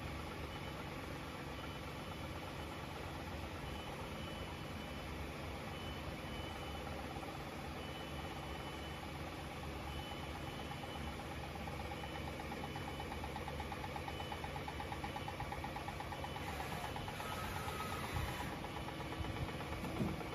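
Double-turret slant-bed CNC turning-milling lathe running: a steady machine hum with a faint high tone pulsing on and off, as the tool turret slides toward the workpiece. In the second half a fast buzzing rattle grows a little louder, and a few sharp clicks come near the end.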